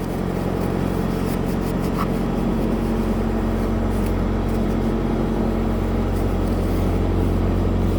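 Steady low hum of an idling truck engine, with a slightly stronger tone for a few seconds in the middle and a faint click about two seconds in.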